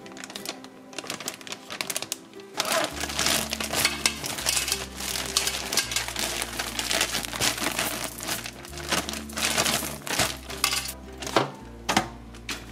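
A plastic freezer bag crinkling and rustling as chicken pieces are shaken and worked in seasoned flour, over background music. A few sharp taps come near the end.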